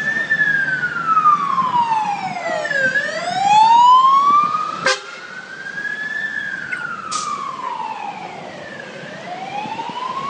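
Emergency vehicle siren sounding a slow wail, rising and falling in pitch about once every six seconds. A sharp click comes about five seconds in, after which the siren is quieter.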